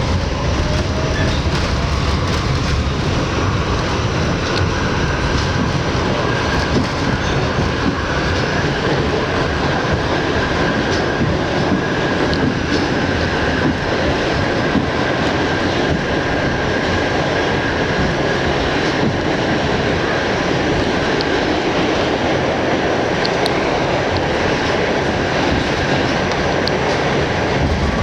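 An R68 New York City Subway train running through the tunnel, heard on board: a loud, steady rumble of wheels on rail with some clickety-clack. A thin, steady high whine comes in about eight seconds in.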